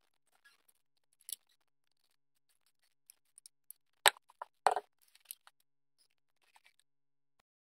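Light clicks and taps of small wooden and metal parts being handled and fitted together, with two sharper knocks about four seconds in as the wooden phone holder is set onto the metal post of its base.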